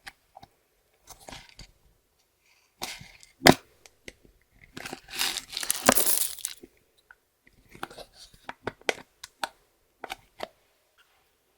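Makeup being mixed into clear slime by hand: scattered sticky crackles and clicks, one sharp crack about three and a half seconds in, and a dense stretch of crackling about five to six and a half seconds in.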